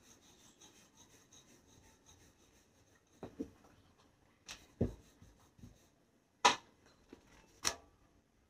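Wooden rolling pin rolling out roti dough on a marble board, with soft rubbing and several sharp knocks in the second half, the loudest about six and a half seconds in.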